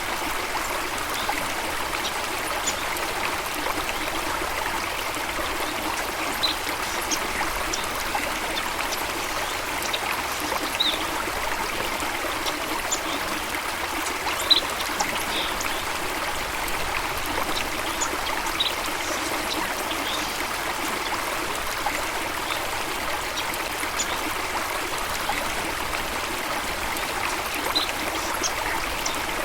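Steady rush of flowing water, a waterfall or stream, with short high bird chirps scattered through it and one brief louder tick about halfway.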